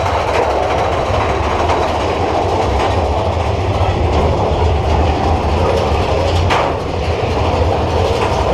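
Big Thunder Mountain Railroad mine-train roller coaster cars running along the track with a steady, loud rattling rumble.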